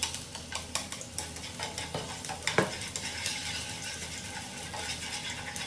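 Chopped garlic sizzling in oil in a nonstick frying pan, stirred with wooden chopsticks that tap and scrape against the pan. One louder knock about two and a half seconds in.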